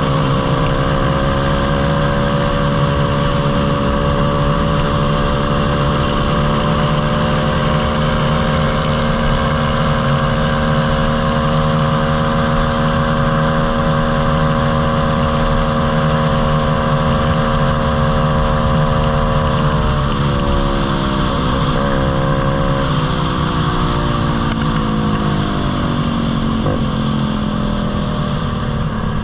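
Single-cylinder four-stroke pit bike engine running at a steady cruising pitch, with wind buffeting the microphone. About twenty seconds in the pitch drops as the throttle is eased off, wavers briefly, then climbs steadily as the bike accelerates again.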